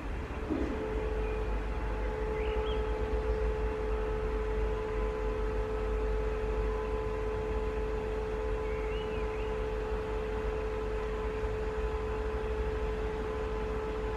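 Electric pre-lubrication oil pump of a DB Class 218 diesel locomotive's MTU 4000 engine running with a steady whine before the engine is started, switching on about half a second in, over a low rumble.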